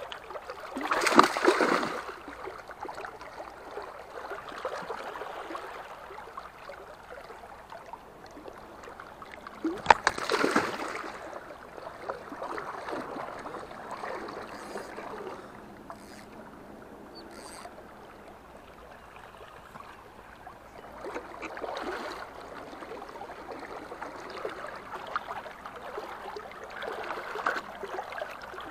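A hooked chub splashing at the surface of the river, with two loud splashes about a second in and again about ten seconds in, over the steady wash of flowing river water.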